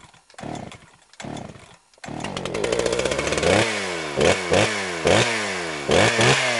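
A chainsaw engine gives two short bursts, catches and runs about two seconds in, then is revved in repeated throttle blips, its pitch falling after each one.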